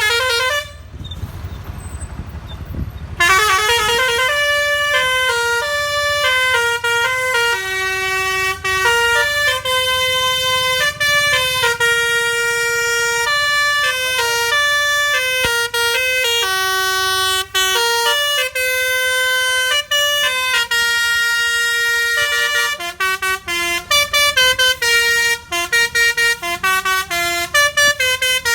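A tour bus's basuri telolet horn, sounded through roof-mounted trumpets, playing a melody. After a brief note there is a lull of about two seconds, then a long run of held notes stepping up and down in pitch. Toward the end the notes turn short and choppy.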